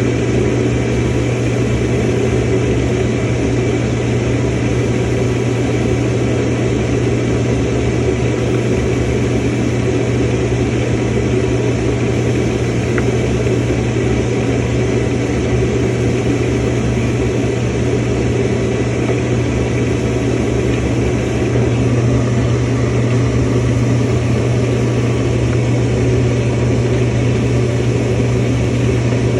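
Samsung washing machine filling with water: a steady rush of water with a constant low hum beneath it.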